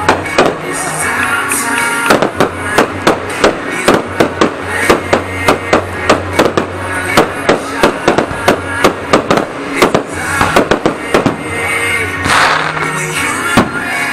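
Aerial fireworks going off in a rapid string of sharp bangs, about two to three a second, over music with a steady bass. The bangs start about two seconds in and thin out near the end.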